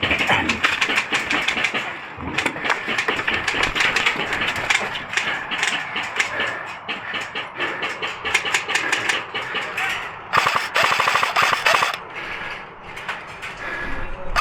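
Airsoft guns firing on full auto, a dense rapid clatter of shots with overlapping streams of fire. The fire gets densest about ten seconds in.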